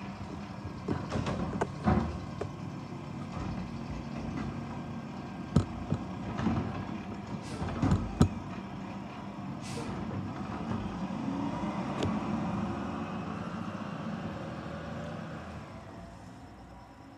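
Front-loader garbage truck's diesel engine running, with several sharp metallic clanks and a short air-brake hiss about ten seconds in. The engine then rises as the truck pulls away and fades near the end.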